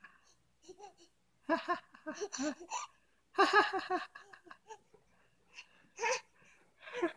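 Laughter in short runs of quick repeated syllables, the loudest about one and a half and three and a half seconds in, with smaller vocal sounds near the end.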